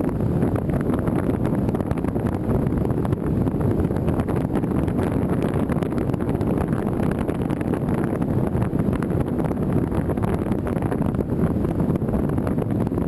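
Steady wind noise: a continuous low rushing rumble of wind buffeting the microphone, without let-up.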